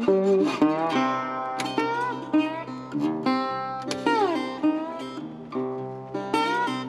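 Background music: acoustic guitar picking a melody with bent, sliding notes over a steady rhythm.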